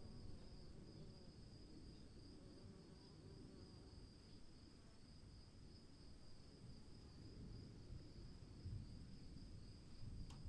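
Steady high-pitched insect chorus over a low, unsteady rumble, in a quiet storm ambience; a faint click near the end.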